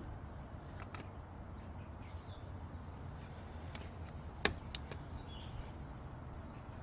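A few short, sharp clicks and knocks of metal parts and tools being handled in a car's engine bay as the battery is set in place, the loudest about halfway through, over a low steady hum.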